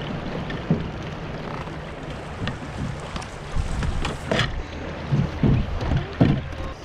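Wind buffeting the microphone over the rush of a shallow river riffle around a canoe. Several knocks and low thumps come in the second half.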